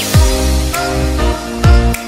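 Background electronic music: deep bass kick hits that drop in pitch, repeating under sustained synth chords and short high notes.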